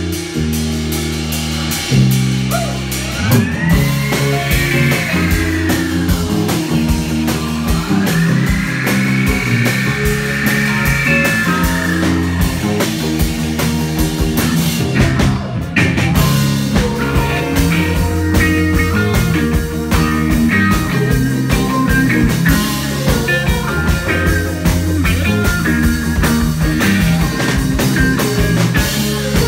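A rock band playing live: electric guitars, bass and drum kit, with two long rising-and-falling pitch sweeps in the first half.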